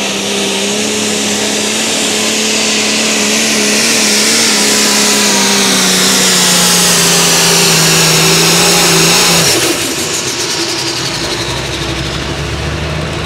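Light super stock pulling tractor's engine running hard at high, steady revs with a loud hiss over it, getting a little louder. About nine and a half seconds in the engine note drops off suddenly to a lower, rougher rumble.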